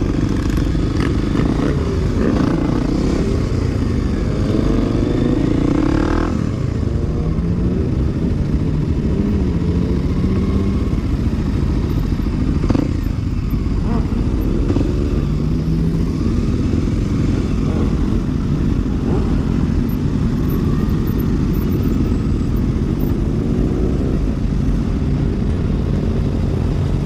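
Kawasaki KLX250S single-cylinder four-stroke engine running at low speed, its revs rising and falling several times, with other motorcycles' engines running close by.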